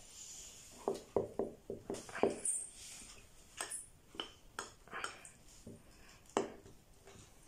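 Spoon tapping and scraping against a small plastic bowl while stirring cocoa powder into thick whipped coffee paste: a run of irregular light clicks, the sharpest one a little past six seconds in.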